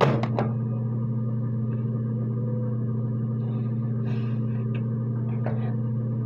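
A steady low hum with a few sharp clicks in the first half second and faint light handling sounds around four to five seconds in.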